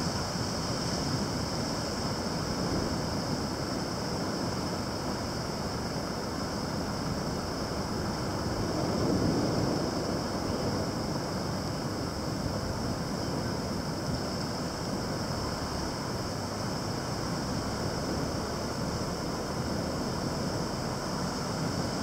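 Heavy typhoon swell breaking over a harbour breakwater and against lava rocks: a continuous wash of churning surf that swells slightly about nine seconds in.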